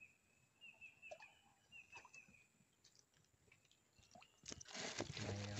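Quiet river-boat ambience with scattered faint clicks and a faint run of high repeated chirps for the first two and a half seconds. About four and a half seconds in, a louder rustling, scraping burst as a small fish is swung out of the water on a bamboo pole and taken in hand.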